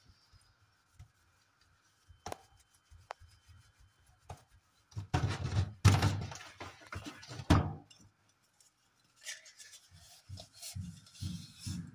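A sponge scrubbing a stainless-steel mesh range hood grease filter in a stainless-steel sink: a rough rubbing, loudest from about five to almost eight seconds in, then softer repeated strokes, with a few light knocks.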